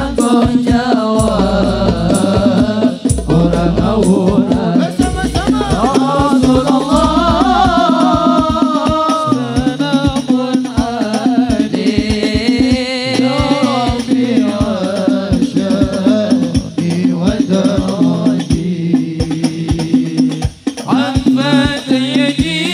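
Sholawat devotional song performed live over a loudspeaker system: sung vocals with a regular percussion beat.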